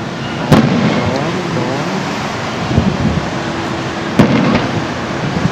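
Aerial fireworks bursting: a sharp bang about half a second in that rumbles on, a few smaller pops, and a second sharp bang about four seconds in.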